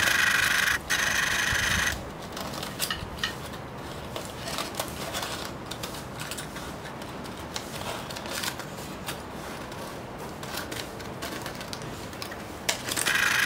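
Kitchen scissors cutting open an aluminium foil parcel: the foil crinkles and rustles with small snips and clicks, loudest in the first two seconds and again near the end.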